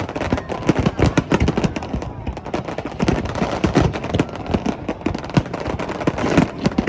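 Fireworks going off in rapid, irregular succession: a dense crackle of many sharp bangs and pops with no letup.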